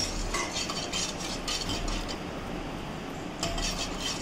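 Wire whisk stirring milk in a kadai, its wires scraping and clicking against the pan in a quick, uneven rhythm, with a pause of about a second past the halfway point.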